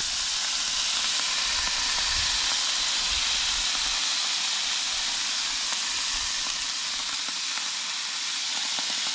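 Water steaming and hissing in a very hot cast iron skillet, with yabby claws boiling in it. A steady, loud hiss.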